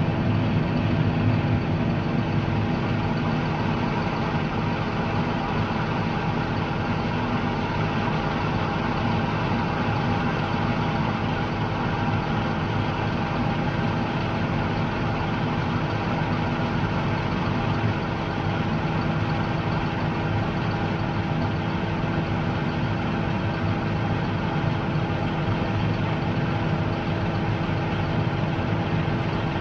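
Heavy diesel engine running steadily a little above idle, heard from inside the cab, with a constant hum and no change in pace.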